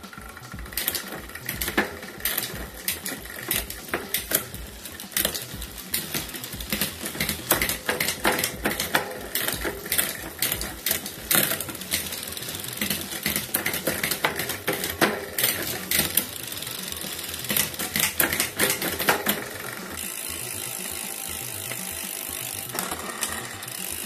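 Bicycle drivetrain turned by hand on a workstand: the chain runs over the rear cassette and derailleur pulleys with dense, irregular clicking and ratcheting while the rear derailleur is adjusted and tested. About 20 s in the clicking gives way to a steadier whir of the chain running smoothly.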